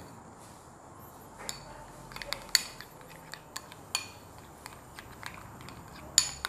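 Metal spoon stirring thick rojak sauce in a glass bowl, clinking irregularly against the glass, with the loudest clinks a couple of seconds in and near the end.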